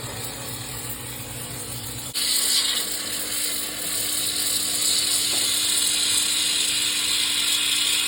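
Low mechanical hum, then about two seconds in a loud, steady, high-pitched mechanical noise starts suddenly and runs on.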